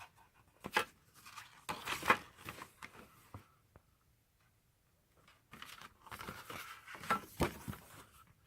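Packaging being torn open and crinkled by hand, in two bursts of rustling and tearing, each about three seconds long, with sharp crackles.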